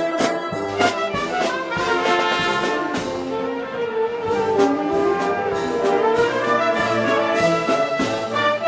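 Brass band playing Moros y Cristianos festival music: sustained trumpet and trombone lines over recurring percussion hits.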